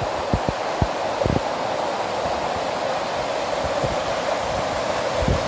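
River water rushing over a small stone weir: a steady, even rush of white water. A few brief low thumps sound over it, mostly in the first second and a half.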